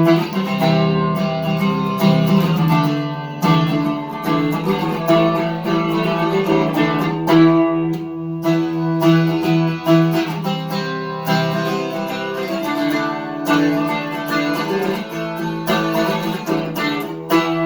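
Electric guitar with GFS Lil' Killers humbucker pickups, played through an amplifier: strummed chords struck every few seconds with the notes left ringing in between.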